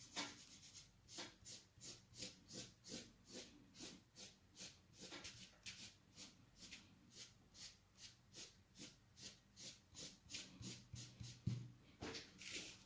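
Faint, steady rubbing strokes, about three a second, of a dental cotton blender scrubbing oil-thinned oil pastel into textured paper, with one louder stroke near the end.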